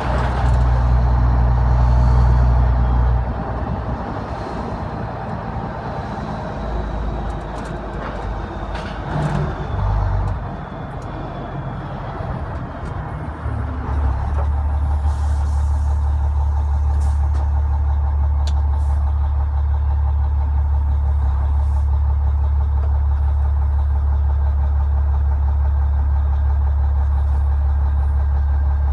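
Renault Magnum 440's Mack E7 E-Tech diesel engine pulling hard, then dropping off throttle about three seconds in, with a faint turbo whistle winding down. About halfway through there is a short hiss of air, and the engine settles into a steady low idle.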